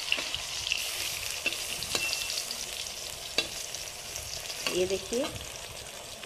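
Brinjal slices sizzling and crackling as they shallow-fry in hot oil in a kadhai, with a few sharp clicks of a metal spatula against the pan.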